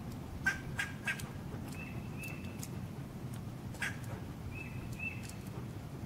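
Fox squirrel barking: short, sharp calls, three in quick succession about half a second in and another near four seconds. Between them a bird whistles two pairs of brief, level notes.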